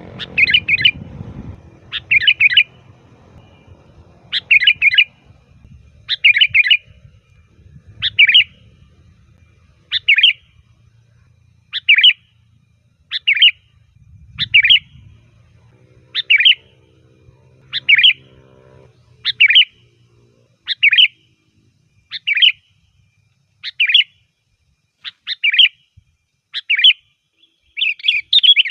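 Sooty-headed bulbul singing loudly, repeating a short chirping phrase about every second and a half to two seconds. Near the end it breaks into a fast run of notes.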